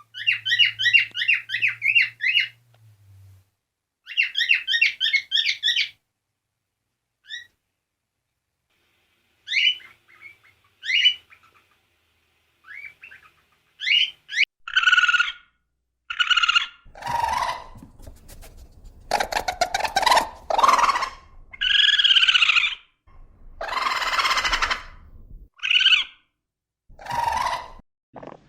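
A pet parrot calling: two quick runs of high chirping twitters in the first six seconds, a few scattered chirps, then from about halfway through a string of louder, harsh squawks.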